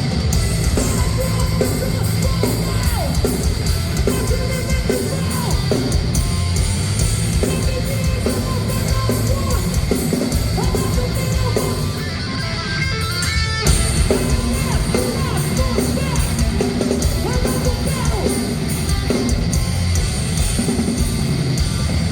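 Hardcore/metal band playing live and loud: distorted guitars, a pounding drum kit and yelled vocals, with a brief lull about twelve seconds in.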